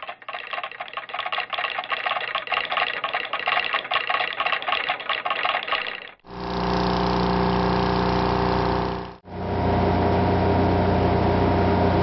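Separate machine sound effects, one after another. First comes a fast, even mechanical pulsing with a ringing tone for about six seconds. Then two steady electrical or motor hums follow, the first cut off briefly after about three seconds.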